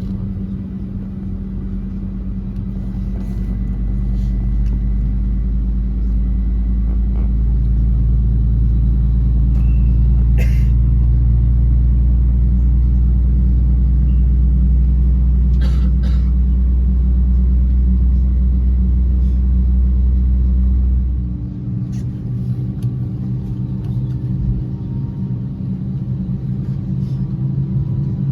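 Cabin noise inside an Airbus A319 backing out from the gate: a steady deep rumble with a hum. It builds over the first few seconds, holds, then drops off sharply about 21 seconds in, leaving a lighter hum.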